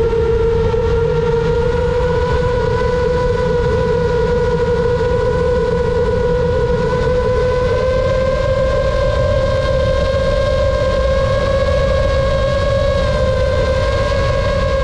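FPV drone's motors and propellers whining steadily in cruising flight, the pitch creeping slightly higher across the stretch, over a low rushing noise.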